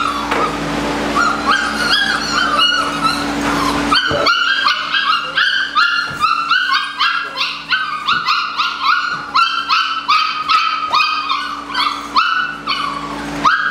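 A group of Belgian Malinois puppies yipping and whining over and over in short, high-pitched cries, coming thick and fast from about four seconds in.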